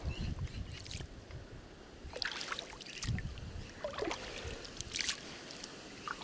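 Lake water sloshing and splashing around a person wading and pulling a gill net through the water by hand, with several small splashes and drips.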